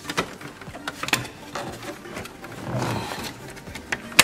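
Hand work on a car's plastic glovebox and dash trim: a string of sharp clicks and knocks from plastic and a screwdriver. A scraping rustle swells about three seconds in, and a sharp click comes at the end.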